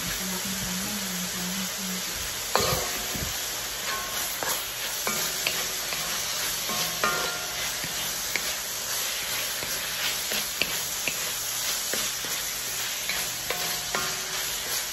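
Vegetables sizzling in a hot cast-iron wok while a wooden spatula stirs and scrapes them, with scattered knocks of the spatula against the pan, the loudest about two and a half seconds in.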